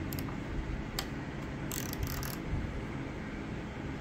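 Handling noise of a small hand tool on a work surface: a couple of isolated light clicks and a brief rustle, over a steady low hum.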